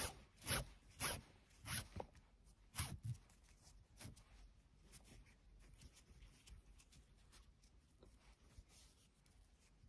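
Nylon paracord pulled through the slot of a plastic buckle in quick tugs, each a short zipping rasp, about one every half second. After about three seconds it gives way to faint rubbing of the cord between the fingers.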